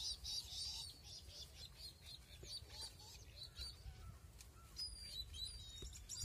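Small birds chirping: a quick run of short high chirps at the start, another run about halfway through, and a few thin whistled notes near the end, over a low rumble.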